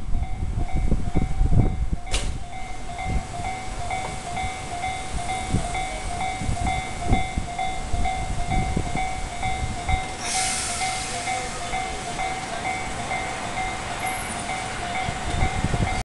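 Level crossing alarm ringing in an even repeating clang while a JR Central 373 series electric train rolls slowly over the crossing, its wheels thudding irregularly on the rails. A loud hiss starts about ten seconds in and carries on.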